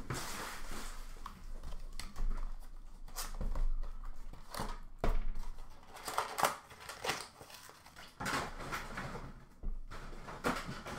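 Trading card boxes and plastic wrappers being handled: irregular rustling with scattered taps and knocks.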